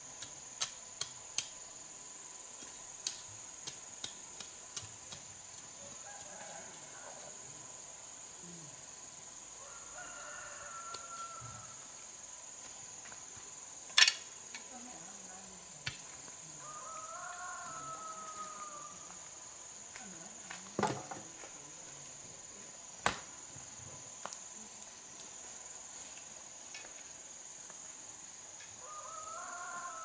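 A rooster crows three times over a steady, shrill drone of insects. A few sharp knocks stand out, the loudest about halfway and two-thirds of the way through.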